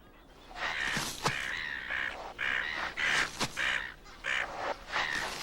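Birds calling: a string of short, harsh calls, one after another, with a few sharp clicks among them.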